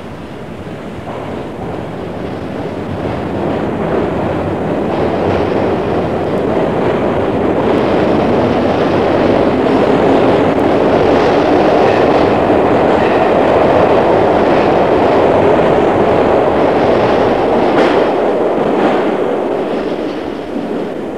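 Sydney "Red Rattler" electric suburban train running. The rumble builds steadily over the first several seconds, holds, and eases near the end, with scattered sharp clicks of the wheels over rail joints. Heard through an old cassette recording.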